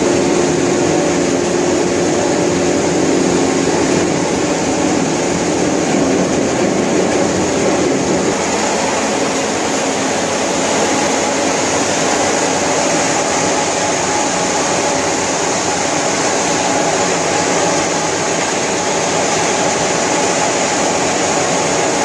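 CSJ-B rubber coarse crusher running, grinding waste tyre rubber into powder: a loud, steady machine noise with a high whine, and its lower hum changes about eight seconds in.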